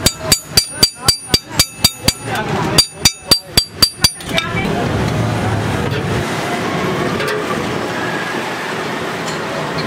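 A steel hammer striking a flat steel strip on a steel block: a run of about ten sharp, ringing metallic strikes at about four a second, a short pause, then about six more. After that a steady hiss takes over for the rest.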